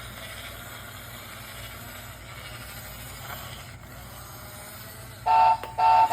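Toy remote-control excavator running its one-click demo: a faint steady whir of its small electric motors, then near the end two short, loud electronic beeps.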